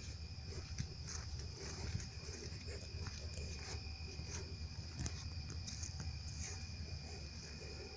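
A steady high-pitched whine over a low hum, with scattered soft clicks and rustles from someone walking while holding the phone.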